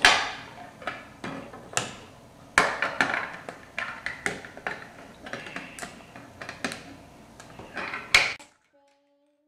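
LEGO plastic plates and bricks clicking and clattering as they are handled, snapped together and knocked on a wooden table: an irregular run of sharp clicks and knocks that stops abruptly about eight seconds in.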